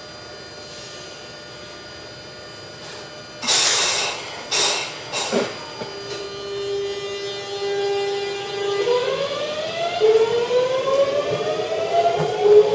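Tobu 100 series Spacia electric train pulling out: a few short bursts of air hiss, then a steady whine from its VVVF inverter and traction motors. About nine seconds in, the whine turns into several tones rising together as the train accelerates.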